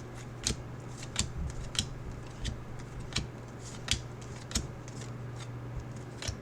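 Trading cards and plastic card holders being handled: a scatter of short, crisp clicks and snaps at irregular intervals, over a steady low hum.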